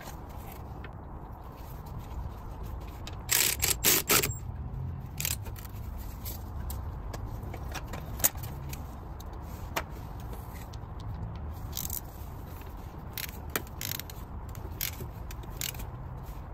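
Metal tools and parts being handled: a quick run of loud clanks a few seconds in, then a sharp single click and scattered lighter clinks and scrapes, over a steady low rumble.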